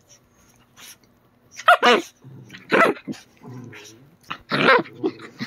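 A dog play-barking and growling in three short, loud bursts during rough play.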